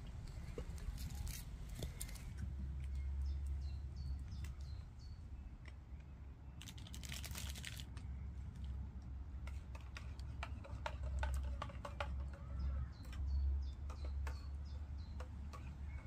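Wood fire in a small Lixada twig-burning stove crackling with sharp clicks as sticks are fed in, with a dense crackling burst about seven seconds in. Birds chirp now and then over a steady low rumble.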